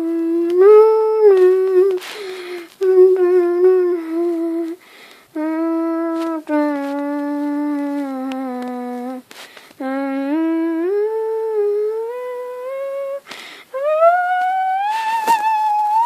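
A person humming a slow, wordless melody in a small room: held notes with short breaks between phrases, ending on a long rising slide up to a high note.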